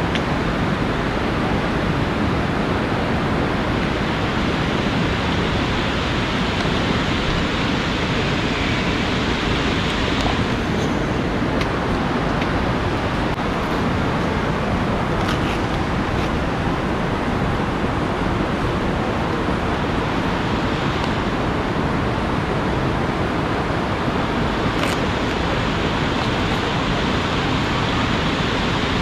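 A swollen, fast-flowing river rushing steadily, with a few faint clicks.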